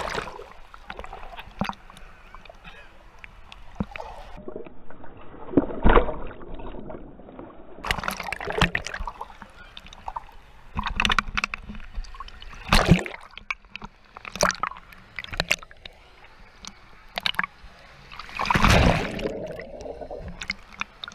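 Wave-pool water sloshing and splashing around a waterproof action camera at the surface, in irregular gushes. About four seconds in it goes muffled for a few seconds as the camera dips under the water.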